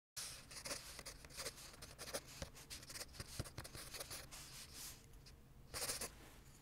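Wooden pencil scratching across lined notebook paper in handwriting, a quick run of short strokes, with a longer, louder stroke near the end.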